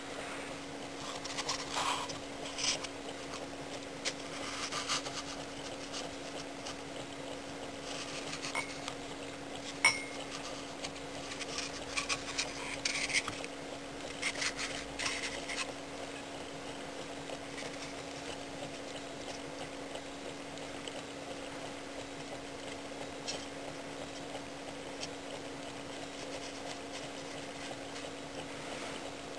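Handling noises of a polystyrene foam block being rubbed and set on a ceramic mug: soft scrapes and light knocks, with a sharp click about ten seconds in. A steady low hum runs underneath, and after about sixteen seconds only the hum is left.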